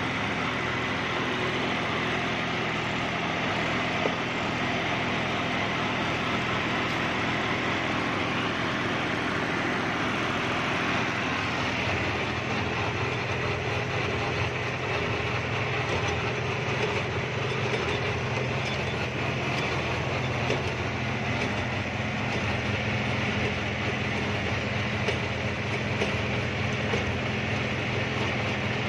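John Deere 5310 tractor's three-cylinder diesel engine running steadily at working revs while driving a rotary tiller on its PTO, with a few small knocks.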